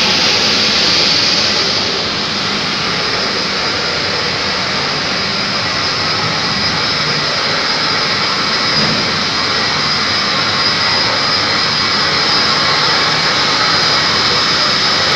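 Steady, loud mechanical noise of a chiller plant room running: an absorption chiller's burner and the electric motors of the chilled-water pumps, with a faint steady high whine over it.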